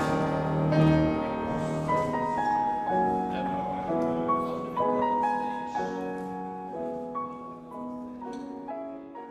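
Classical music played on a grand piano, a run of pitched notes that grows steadily quieter, fading out toward the end.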